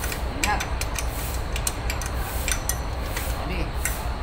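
Irregular metallic clinks and ticks of a hand wrench working the mounting bolts of a truck air compressor, over a steady low hum.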